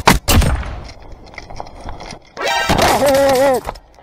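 Airsoft rifle firing a quick string of sharp shots, the last one ringing out briefly. About two and a half seconds in comes a loud, drawn-out shout lasting about a second.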